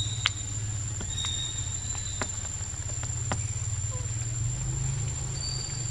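Wet-forest ambience: a steady low rumble under a constant thin high whine, with a few brief high chirps and scattered sharp clicks, roughly one a second.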